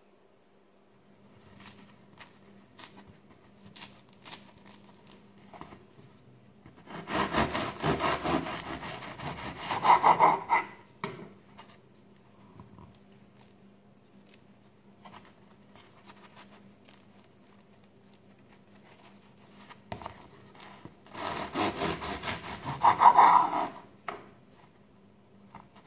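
Serrated bread knife sawing through a crisp-crusted homemade loaf on a wooden cutting board, twice, each cut a few seconds of crackling crust. Light crackles and taps from the bread being handled come in between.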